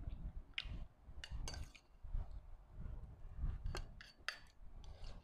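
Metal spoon clinking and scraping against a small ceramic bowl, several sharp clinks scattered through, over low close-up chewing sounds.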